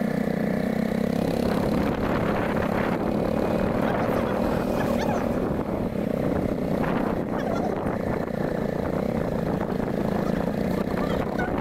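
Royal Enfield Himalayan motorcycle's single-cylinder engine running at a steady cruise while riding, mixed with an even rush of road noise.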